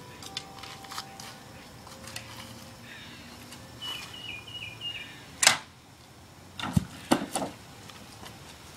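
A single shot from a small bow: one sharp snap about five and a half seconds in as the arrow is loosed and punches through a plastic water jug, then about a second later a dull thud and a few knocks as the jug drops off its post onto the ground.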